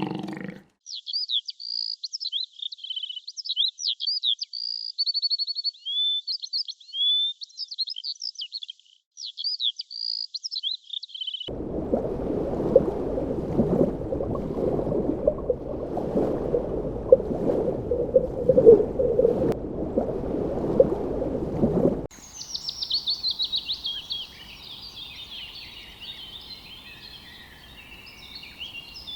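A songbird singing clear, high, quickly gliding chirps and trills, ending about eleven seconds in. Then a stretch of low, noisy sound with many sharp clicks, followed near the end by a fainter chorus of many small birds chirping.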